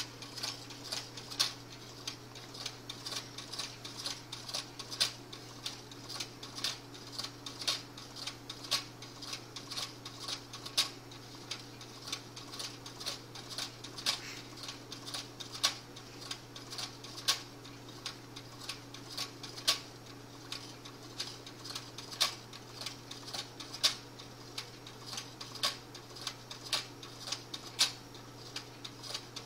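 Homemade soda-can gamma-type Stirling engine with a CD flywheel, heated on a stove burner and running: its wire crank and linkages give a continuous run of light clicks at an uneven pace, a few a second, some louder than others, over a low steady hum.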